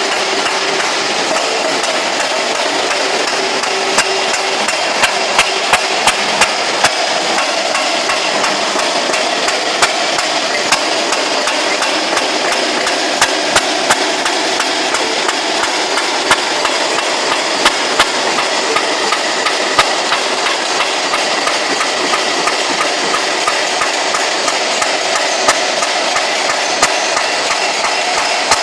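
Excavator running, with a steady mechanical noise and many sharp, irregular knocks and clanks, typical of steel parts of the arm striking and shifting as the telescopic dipper works.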